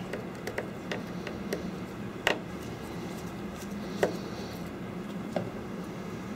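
Small scattered clicks of a Phillips screwdriver turning out the tiny corner screws that hold an iPad 4's LCD, with a few sharper ticks about two, four and five seconds in. A faint steady hum runs underneath.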